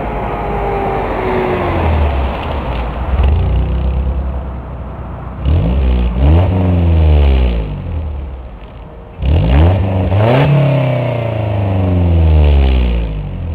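A Mercedes C230 Kompressor's supercharged four-cylinder engine sounding through an aftermarket Magnaflow muffler, heard close behind the exhaust tip. It runs at low revs, then is revved sharply twice, about five and nine seconds in, each time climbing fast and dropping back.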